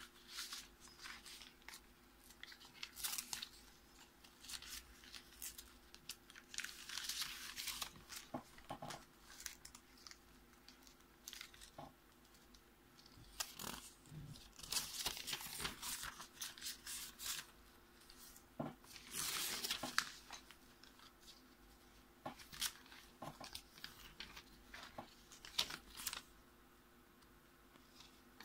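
Notebook paper rustling and crinkling as hands turn, press and fold squared-paper pages, in irregular bursts with a few sharp clicks.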